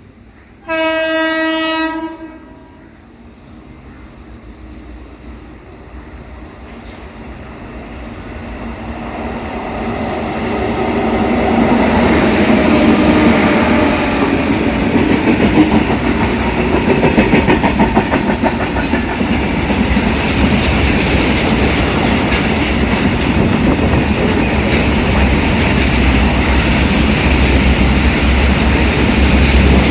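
Double-headed WAG-9 electric locomotives hauling a goods train. The horn sounds one blast about a second in, then the train's rumble grows louder as it approaches and stays loud as it runs past, with wheels clacking over the rail joints.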